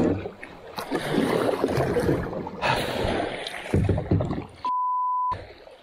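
Kayak paddle strokes splashing and swishing through moving river water. About five seconds in, a steady beep of about half a second replaces all other sound: a censor bleep over a swear word.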